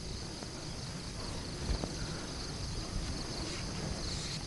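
Steady chorus of insects chirping high in pitch, over a low outdoor rumble.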